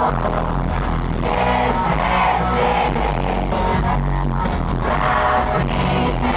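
Live pop band playing a song with sung vocals and electric guitar, recorded from within the concert audience.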